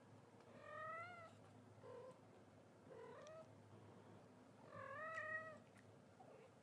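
A cat mewing four times in short, high, rising meows; the first and last are the longest and loudest.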